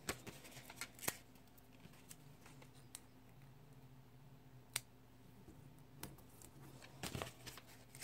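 Faint, scattered ticks and rustles of paper and sticker handling as a sticker is pressed onto a paper planner page, with a short cluster of rustling near the end.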